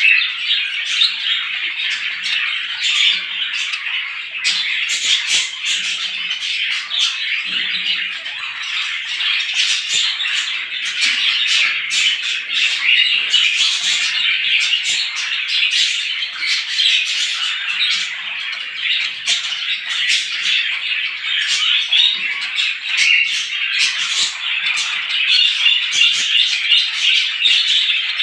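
A flock of small birds chirping and chattering together, many overlapping calls in a dense, unbroken chorus.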